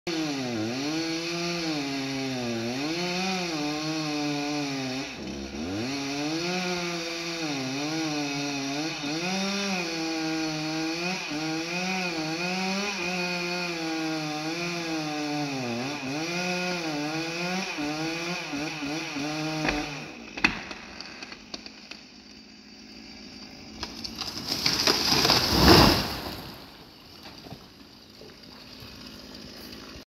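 Chainsaw engine revving up and down over and over as it cuts limbs, stopping about two-thirds of the way in. A few sharp cracks follow, then a loud rushing crash that swells and dies away over about two seconds as a cut limb comes down through the branches.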